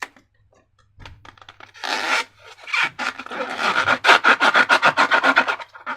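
Rapid rubbing and scraping strokes that start about a second in and grow denser and louder after a brief pause, several strokes a second.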